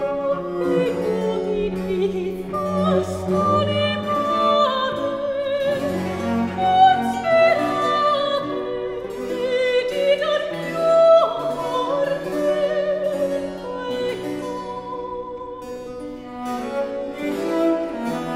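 A soprano singing a Baroque oratorio aria with vibrato, over a continuo of cello, harp and harpsichord.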